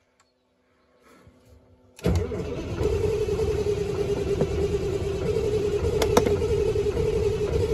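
An old Freightliner truck's diesel engine being started: near silence for about two seconds, then it starts with a sudden loud onset and keeps running steadily. Two sharp clicks come about six seconds in.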